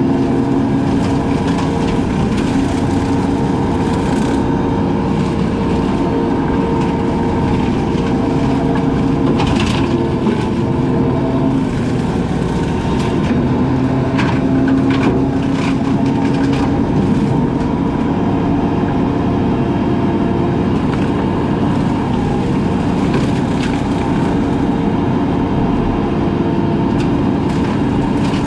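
Brush-cutting machine running steadily under load while it chews through brush and wood. Sharp cracks and splintering come through about ten seconds in and again around fifteen seconds.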